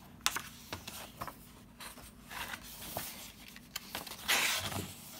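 Handling noise from a picture book: a few light clicks and taps, then a page turning with a short papery swish about four seconds in.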